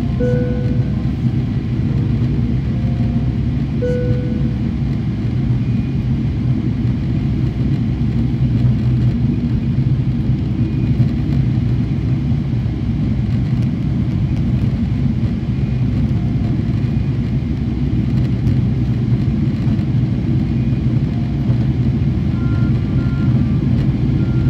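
Steady cabin roar of a Boeing 777-300ER in flight, heard at a window seat: the GE90-115B turbofans and the airflow over the fuselage make a deep, even rumble.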